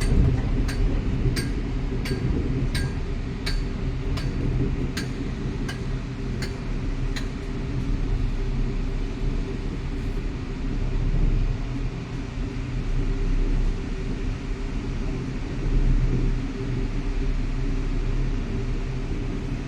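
Steady low road and engine rumble of a car heard from inside the cabin. For the first seven seconds or so a sharp tick repeats about every 0.7 s, then stops.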